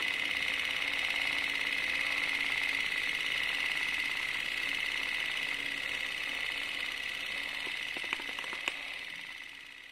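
Film projector running: a steady, fairly high mechanical whir, with a few sharp clicks near the end before it fades out.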